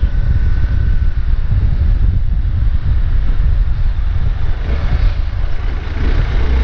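Hero Xpulse 200 4V's single-cylinder engine running through its stock exhaust at a steady riding pace, mixed with heavy wind noise on the microphone.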